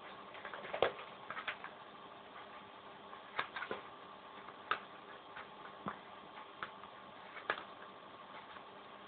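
A sheet of paper being folded and creased by hand: irregular short crackles and taps at uneven intervals, the sharpest about a second in, over a steady faint hiss.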